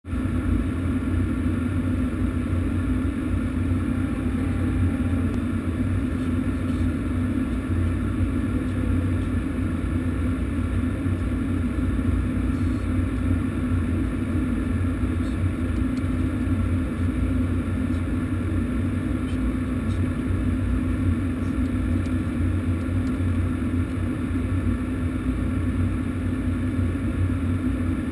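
Steady drone of an aircraft in flight heard inside the cockpit: engine and airflow noise with a constant low hum.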